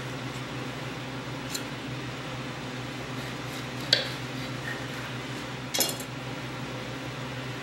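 Kitchen knife slicing a rolled dough log on a granite countertop: a sharp clack of the blade striking the stone about four seconds in, then a short clatter near six seconds as the knife is laid down on the granite. A steady low hum runs underneath.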